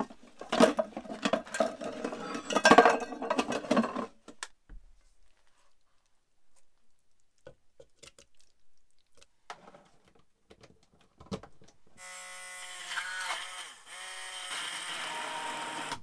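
Pots, pans and lids clattering in a kitchen drawer for about four seconds as it is rummaged through. Near the end, an electric stick (immersion) blender starts and runs steadily in a cup, pureeing tomato tikka masala sauce.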